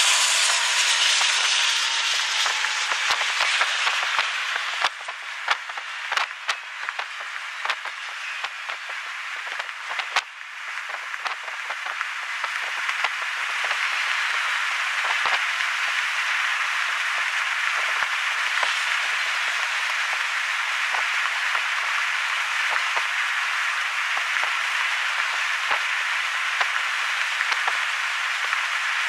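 Union Pacific doublestack container train rolling past at close range: a steady hiss of steel wheels on the rails, loudest in the first couple of seconds as the locomotive goes by. Sharp clicks come through the first dozen seconds, and after that the sound settles into an even rolling noise as the container cars pass.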